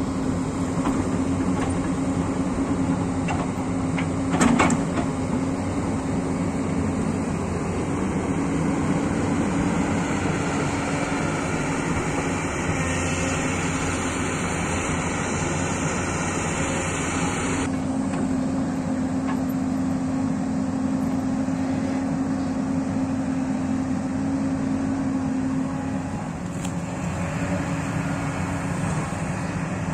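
Hyundai 220L crawler excavator's diesel engine running steadily under load as the machine digs and swings, with one sharp knock about four and a half seconds in.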